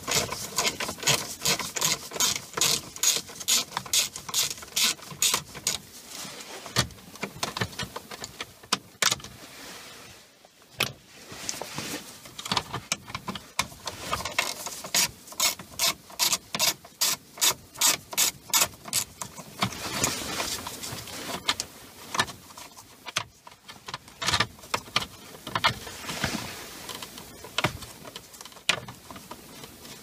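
Hand socket ratchet clicking in quick runs of several clicks a second, with short pauses between runs, as it loosens the Torx screws on a steering column.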